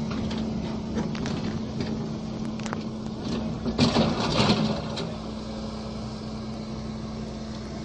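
Hydraulic excavator's diesel engine running with a steady hum, with scattered knocks and clatter and a louder rough burst about four seconds in.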